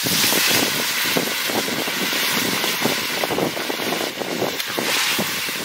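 Hot oil sizzling in a cooking pan: a steady hiss with dense small crackles.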